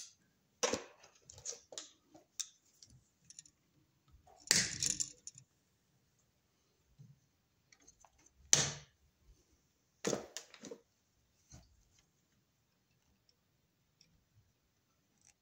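Hand tools and small parts handled while wiring an electrical box: scattered clicks and rattles, with short louder clacks about four and a half and eight and a half seconds in.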